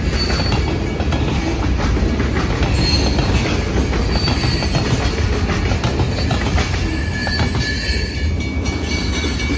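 Freight train cars rolling past on jointed track, a steady low rumble with wheel clatter and brief high-pitched wheel squeals. The rumble eases a little near the end as the last car goes by.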